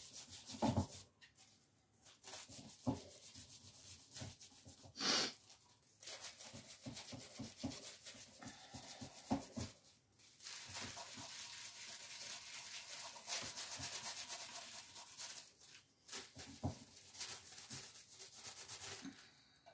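Paper interleaf sheet being rubbed over freshly laid gold leaf to burnish it down: faint, quick rubbing strokes, with one short louder stroke about five seconds in and a longer spell of continuous rubbing around the middle.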